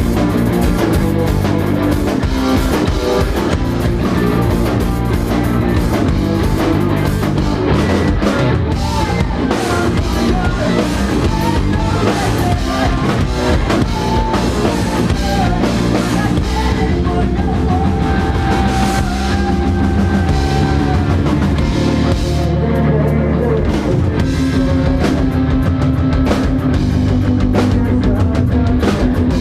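Live rock band playing loud and without a break: drum kit and guitars, with long held notes in the second half.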